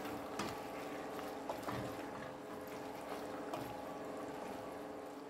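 Wooden spatula stirring thick okra and pumpkin-leaf soup in a stainless steel pot: wet sloshing of the vegetables and liquid, with a few light taps of the spatula against the pot, over a steady faint hum.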